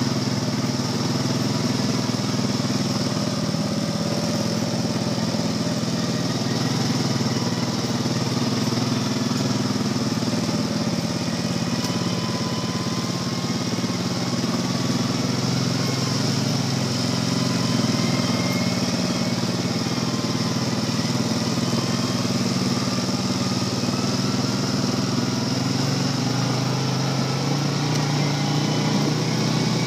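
ATV engines running steadily at trail-riding speed, a low, even engine hum with a fainter, higher engine note wavering above it.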